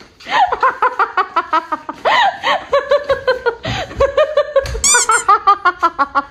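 Rapid, high-pitched laughter, a string of 'ha ha ha' at about five a second, with a short squeaky high sound about five seconds in.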